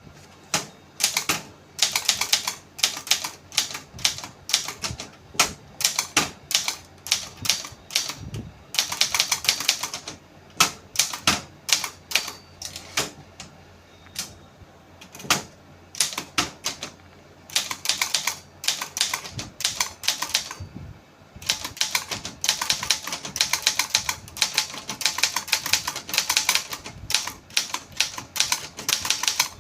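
Brother Deluxe 220 typewriter being typed on: keys striking in quick runs of sharp clacks, with short pauses between runs.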